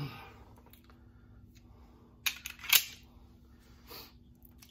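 Two sharp metallic clicks about half a second apart, the second the louder, from a Smith & Wesson 1911 .45 ACP pistol being handled, with a fainter click near the end.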